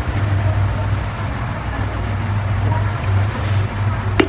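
Steady low rumble, like a nearby engine or traffic, under faint chewing and mouth sounds of someone eating; a sharp click about four seconds in.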